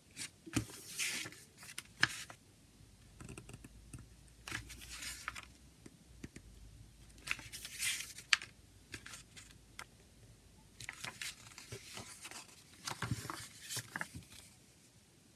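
Paper pages of a CD booklet being turned and handled: several bursts of crisp rustling, with a few sharp taps among them.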